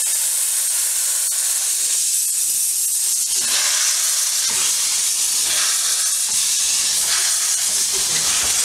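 Steady hiss of steam escaping from a 2 ft gauge steam locomotive.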